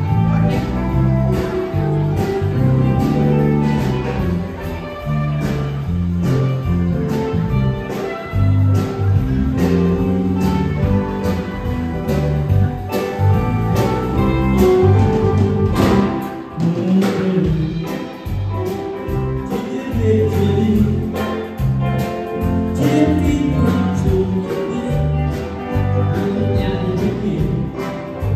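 Live band playing an upbeat song with a singer, electric guitar, bass and drum kit keeping a steady beat.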